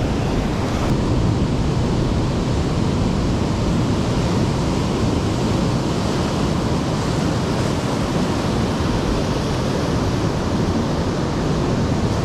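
Ocean waves washing in a steady rush, with wind on the microphone adding a low rumble.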